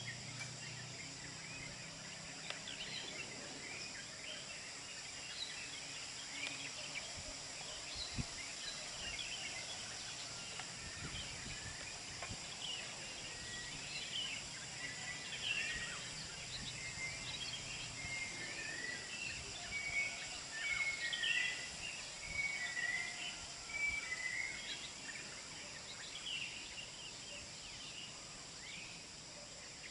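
Hillside ambience: birds chirping and giving short whistled notes, busiest in the middle, over a steady high-pitched insect drone.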